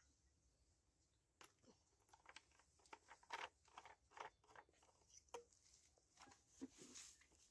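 Faint, scattered plastic clicks and scrapes from a fuel canister and a brush cutter's fuel tank being handled during refuelling, over near silence.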